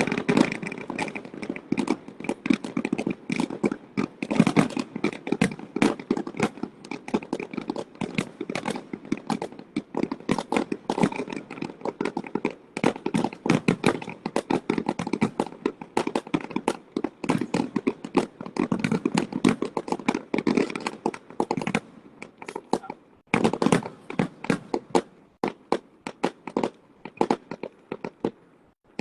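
Fireworks display going off in a dense, rapid barrage of bangs and crackles, with a short lull a little over two-thirds of the way through.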